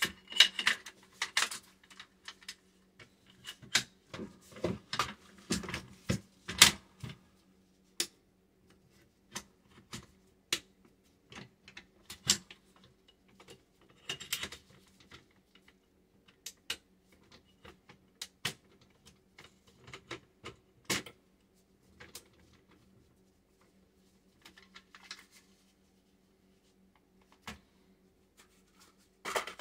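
Sharp metal clicks and knocks of a Smith & Wesson M&P15 AR-15 rifle being handled and put back together, its upper receiver being fitted onto the lower. The clicks come thick and fast over the first several seconds, then more scattered.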